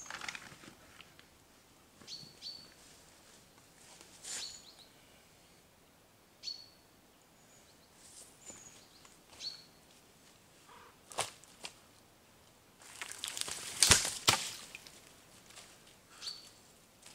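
Small birds giving short, high chirps now and then in woodland. About two thirds of the way through comes the loudest sound: a brief burst of footsteps crunching through dry leaf litter and twigs, with a few single snaps around it.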